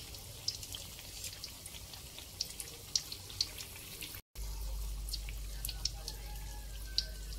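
Spring rolls deep-frying in hot oil in a pot: a steady sizzle with scattered pops and crackles. The sound cuts out for a moment about four seconds in, then goes on over a low hum.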